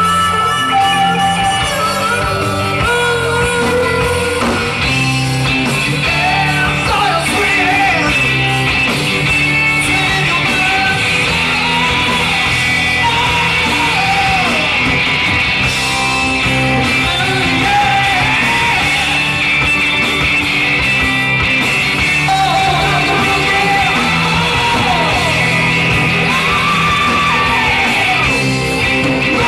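Live rock band playing: a male singer over electric guitars, bass and drums, heard on an audience recording from the floor of the club.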